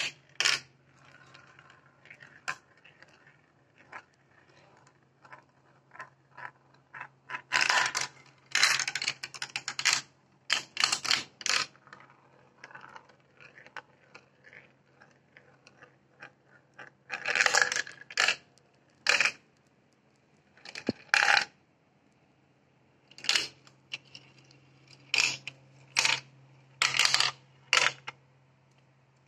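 A glass marble running down a plastic marble run: bursts of clattering and rattling as it drops through tubes and pieces, sharp single clicks, and quieter rolling in between. A faint steady hum runs underneath.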